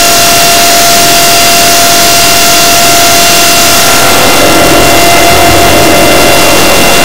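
Heavily distorted, clipped electronic noise at near full loudness, with several steady high tones held through a harsh hiss. This is a digitally processed 'earrape' style audio effect.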